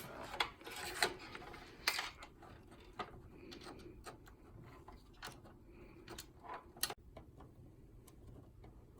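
Irregular light clicks and taps of a computer case fan being handled and fitted into a PC case, busiest in the first two seconds and then sparser, with a few sharp clicks.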